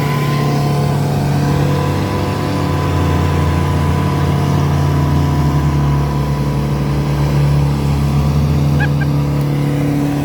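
Off-road vehicle engine running loud and steady, holding nearly constant revs.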